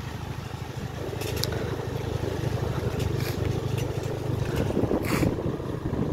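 A moving vehicle's steady low rumble, with a few brief hissing rushes of noise, the last and loudest near the end.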